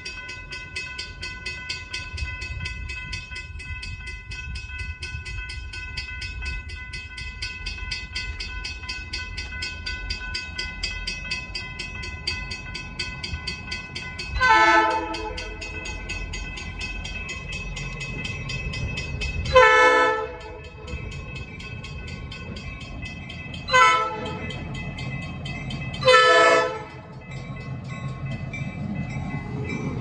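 A grade-crossing bell rings steadily while an approaching Norfolk Southern diesel locomotive sounds its air horn four times, long, long, short, long: the standard warning for a road crossing. The locomotive's engine rumble grows near the end as it passes close.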